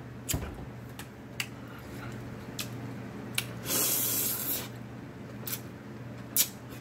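A person eating noodles with wet mouth smacks and chewing clicks. Just before halfway there is one loud slurp of about a second as a forkful of noodles is drawn into the mouth.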